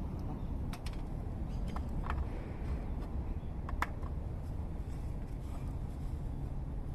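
Wood campfire giving a few sparse, sharp crackles, the loudest nearly four seconds in, over a steady low rumble.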